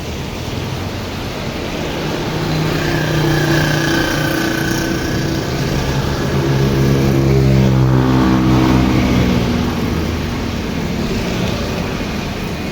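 A motor vehicle's engine goes by over a steady hiss of heavy rain. It grows louder to a peak about two-thirds of the way through, its engine note shifting in pitch, then fades.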